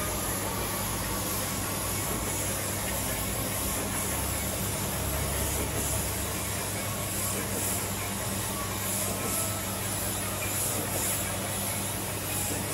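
Gravity-feed compressed-air spray gun hissing steadily as it atomises paint onto a scooter body shell, the hiss surging briefly several times in the second half, over a steady low hum.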